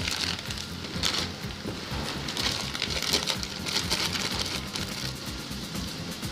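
Plastic parcel packaging being crinkled and pulled open by hand, in irregular crackly bursts, over background music with a steady beat.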